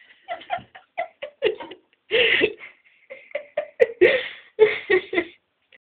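A person laughing in short bursts of chuckles and giggles, in several runs with brief gaps between them.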